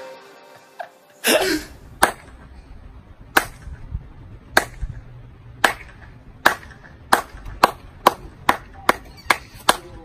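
One person's slow clap: single hand claps, the first ones more than a second apart, speeding up steadily to about three a second by the end. Just before the clapping starts, a short rush of noise sounds about a second in.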